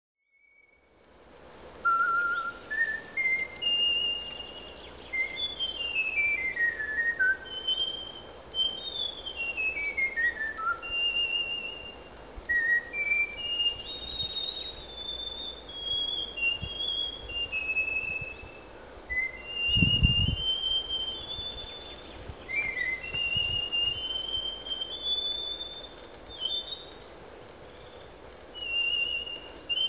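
Art whistling by mouth: a melody of clear, high single notes in quick runs, with several falling scales. A brief low rumble sounds about twenty seconds in.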